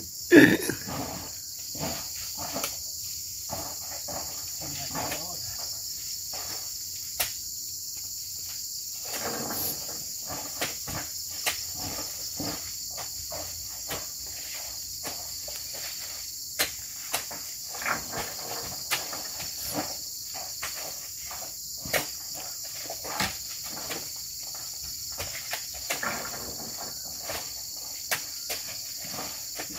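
Steady high-pitched drone of insects, with irregular sharp knocks and thuds as oil palm fruit bunches are speared on a pole and thrown up onto a lorry's load.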